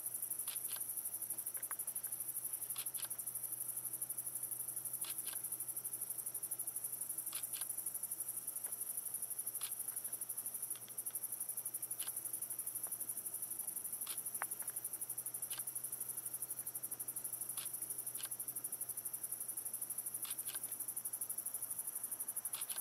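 Chorus of night insects: a steady, high-pitched, rapidly pulsing trill, with a faint pair of clicks every two seconds or so.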